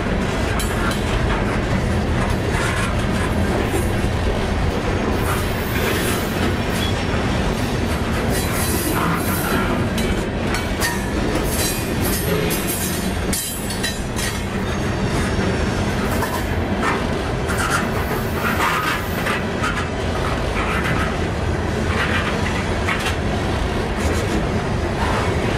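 Loaded open-top coke hopper cars of a freight train rolling past close by: steady wheel-on-rail rumble with clickety-clack over the rail joints and brief high-pitched squeals now and then.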